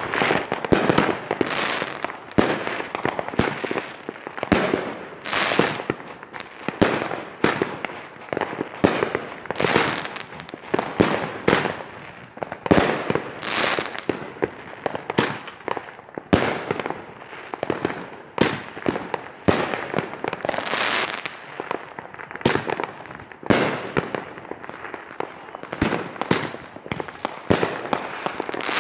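Consumer aerial fireworks firing shot after shot in quick succession: sharp bangs about once or twice a second, with hissing and crackling from the bursting stars between them.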